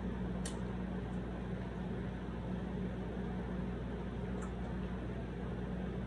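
Steady background hum and hiss, with two faint clicks, one about half a second in and one near the end.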